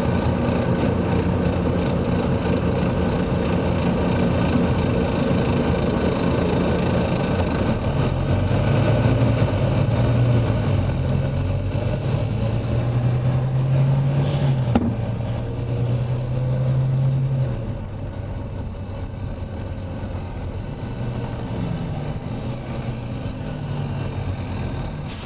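Volvo B9TL double-decker bus's diesel engine running as the bus drives. The engine note pulls harder and rises from about eight seconds in, with a sharp click near fifteen seconds, then eases off and quietens a few seconds later.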